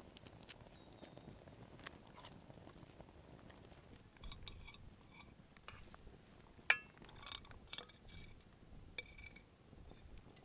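Quiet handling sounds: scattered light clicks and knocks, with one sharp clink about two-thirds of the way through that rings briefly, followed by a few smaller clinks.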